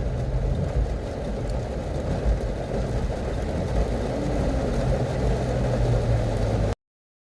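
Car engine idling, heard from inside the cabin as a steady low rumble with a hum. It cuts off abruptly near the end.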